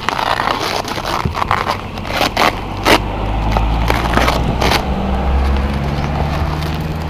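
Plastic bubble wrap crinkling and crackling as it is handled and pulled loose from a boxed shotgun. A steady low engine hum, like a motor vehicle running nearby, comes in after about a second and continues underneath.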